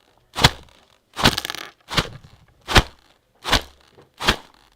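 A series of sharp cracks, about one every three-quarters of a second, with a longer crunch about a second in, made as foley.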